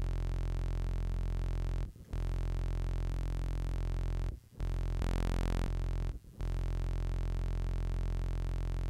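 Low sustained synthesizer note from Xfer Serum, saturated through Soundtoys Decapitator, a steady tone full of overtones. It is played four times, each note held about two seconds with short breaks between.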